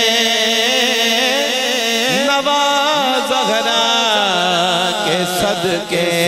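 A male naat reciter singing a long, ornamented melodic phrase with wavering pitch, over a steady sustained drone.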